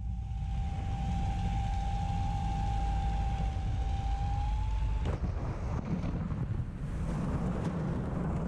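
Wind rush and a low rumble in a P-51 Mustang's cockpit as it glides in with a partial engine failure, with a steady high tone sounding. About five seconds in, the gear-up belly hits the field with a sudden thud, the tone cuts off, and a rushing, scraping noise of the aircraft sliding through the crop follows: a gear-up off-airport crash landing.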